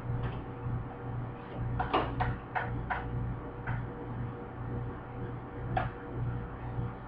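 Sharp taps and clicks of hand work on a stainless steel kitchen unit during a door-gasket repair: a quick run of about five about two seconds in, then single ones near four and six seconds. A steady low hum runs underneath.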